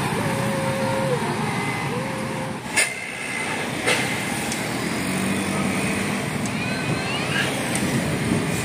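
Road traffic noise from passing heavy vehicles, a steady engine and tyre rumble. Two sharp snaps stand out, about three and four seconds in.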